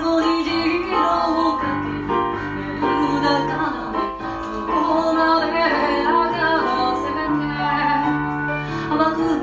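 Music: a song with a female voice singing over instrumental accompaniment with a held bass line.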